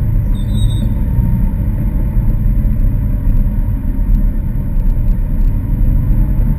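Lamborghini Aventador LP700-4's 6.5-litre V12 running steadily with a deep, even rumble.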